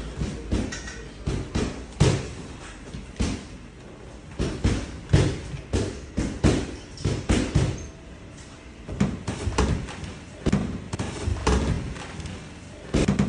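Boxing gloves thudding against bodies and gloves during close-range sparring in a clinch: a string of irregular dull thumps, some much harder than others.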